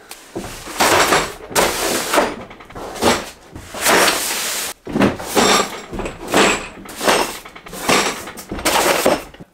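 Heavy cardboard boxes of screws being set down, stacked and slid on a wooden workbench. Repeated thuds and scraping of cardboard on wood.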